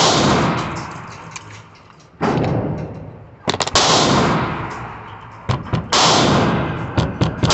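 Gunshots in an indoor shooting range, each followed by a long echoing decay. Loud single shots come about two seconds apart, with a quick run of three near the middle and fainter sharp cracks in between.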